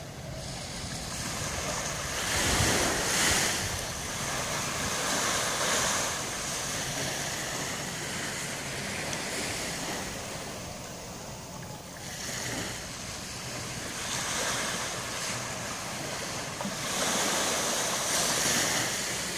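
Small waves washing up on a sandy beach, the sound swelling and fading every few seconds as each one breaks and runs up the sand.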